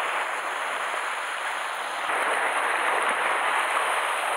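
Sea waves washing and foaming over shoreline rocks: a steady rushing hiss that grows a little louder about two seconds in.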